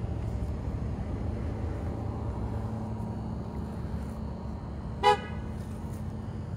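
A single short car-horn toot about five seconds in, over a steady low rumble.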